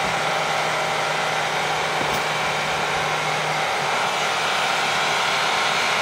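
Handheld hair dryer running on the hot setting with the fan on low: a steady rush of air with a low hum.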